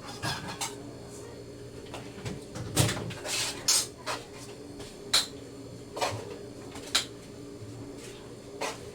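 Cooking clatter: scattered knocks and clinks of pots, lids and utensils, about eight sharp ones, with a brief scraping rush about three seconds in, over a steady low hum.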